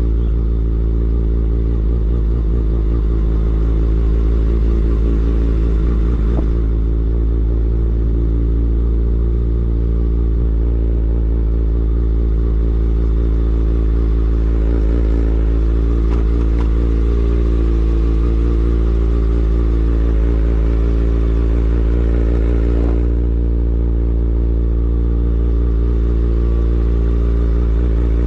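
Sport motorcycle's engine running steadily while being ridden at low speed, its note holding fairly even with only slight changes in pitch.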